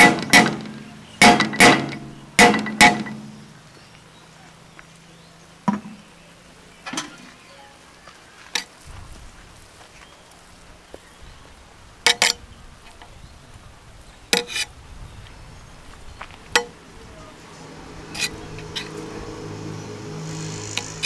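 Metal serving spoon knocking and clinking against the side of a large metal biryani pot as the rice is turned over after dum cooking. A quick run of about five sharp, ringing clinks at the start, then single knocks every second or two.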